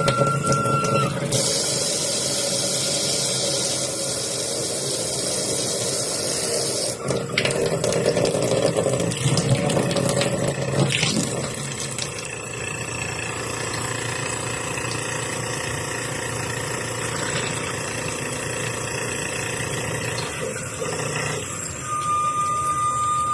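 Kitchen mixer tap running, with rushing water and a vibrating hum and whine over it. The sound changes character several times, and a clear steady whine sets in near the end. Such tap noise is typical of high water pressure, a worn washer or loose parts inside the mixer.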